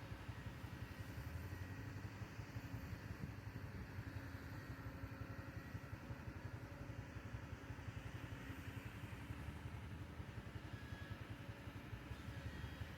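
A vehicle engine running steadily at low speed, a low rumble with no clear revving.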